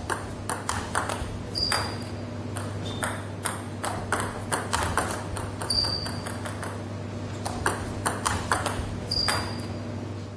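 Table tennis ball knocking on the table and the rubber bats in short serve-and-flick-return exchanges: quick irregular series of sharp clicks, with a short high ping three or four times, over a steady low hum.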